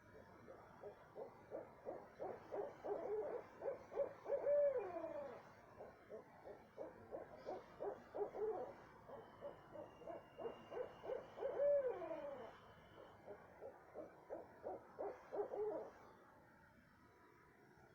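Owls calling at night: rapid, excited runs of hoots in three bouts. The first two bouts each end in a drawn-out call that falls in pitch.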